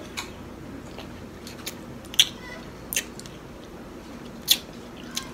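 A person eating close to the microphone: chewing with scattered sharp wet clicks and smacks, the loudest about two seconds in.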